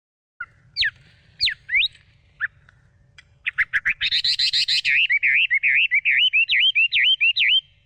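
A small bird chirping: a few separate sweeping chirps, then a fast run of repeated chirps, several a second, for about four seconds, which stops suddenly near the end.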